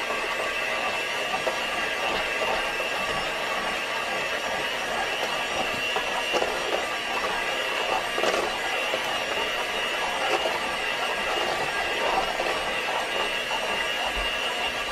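Electric hand mixer running steadily, its beaters whipping mashed potatoes with cream in a metal pot: a steady motor whine.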